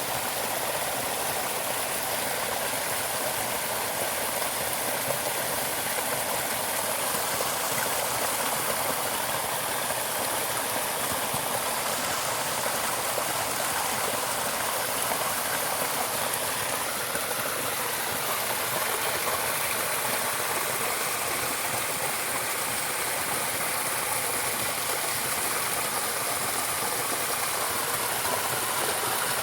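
Steady rushing of flowing water, like a stream, unbroken throughout.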